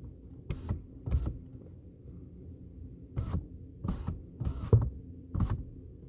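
Car's power window being opened a crack in a series of short taps on the switch, about six brief bursts with a pause in the middle.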